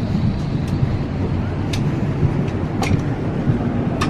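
Airliner cabin noise while passengers leave the plane: a steady low rumble with a faint hum, and a few sharp clicks and knocks.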